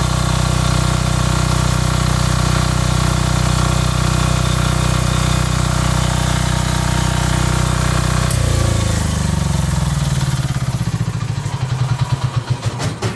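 Titan 5500 W diesel generator, a single-cylinder copy of the Yanmar L70, running steadily, then shut off about eight seconds in: its chugging slows and dies away over about four seconds.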